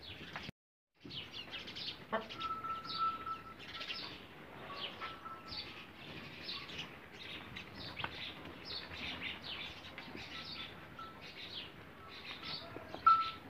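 Many small birds chirping in quick, overlapping calls, with a thin steady whistling note that comes and goes. The sound drops out completely for under a second near the start.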